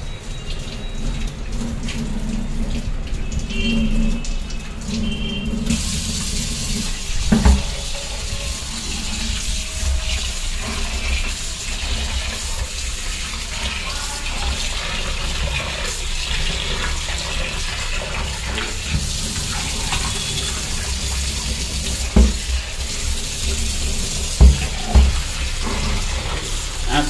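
A tap running into a sink as cooking pots are washed by hand, the water starting about six seconds in, with a few sharp knocks as the pots are handled.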